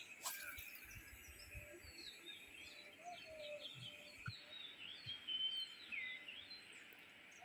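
Faint birds chirping and calling, several short rising and falling chirps over a steady high-pitched hiss, with a single click shortly after the start.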